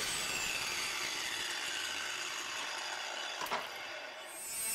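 Angle grinder winding down after being switched off, its whine falling in pitch and fading. About three and a half seconds in there is a single sharp knock as the tool is set down on the bench.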